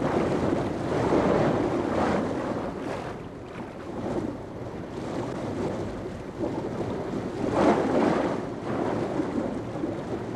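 Water splashing and churning as reef sharks thrash at the surface after bait. The noise swells about a second in and again, most strongly, near eight seconds.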